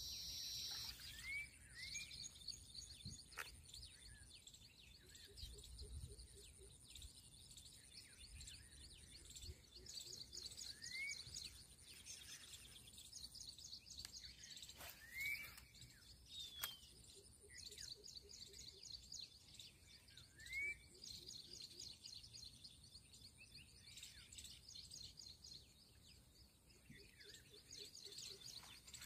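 Faint outdoor wetland ambience: insects trilling in rapid pulses high up over a steady thin high whine, with a few short rising bird chirps here and there.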